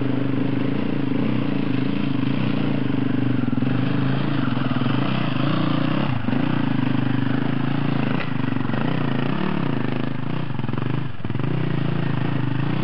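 Dirt bike engine revving up and down as the bike rides past close by, its pitch rising and falling with the throttle.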